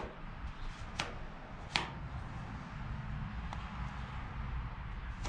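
Plastic body-filler spreader working glazing putty onto a car's metal fender, with three sharp taps in the first two seconds, over a low steady background rumble.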